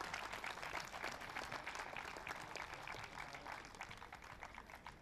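Audience applause: many hands clapping in a dense patter that thins out and fades near the end.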